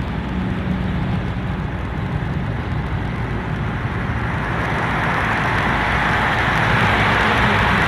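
Road and engine noise heard inside a moving car at highway speed: a steady low hum under tyre hiss. The hiss grows louder about halfway through.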